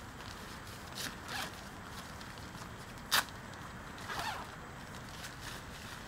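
Tent door zipper worked by hand in a few short rasping strokes, about a second in and again around four seconds, with a sharp click about three seconds in.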